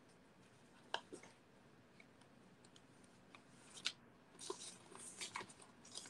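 Faint rustling of paper and card with a few light clicks as craft supplies are sorted through: sharp clicks about a second in and near four seconds, then a spell of rustling near the end.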